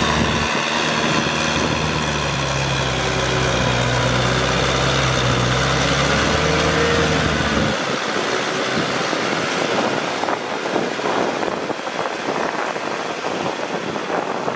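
Kubota tractor's diesel engine running steadily under load as it drives a rotary tiller through a flooded paddy. About halfway, the engine note cuts off suddenly and a rough, gusty rushing noise is left.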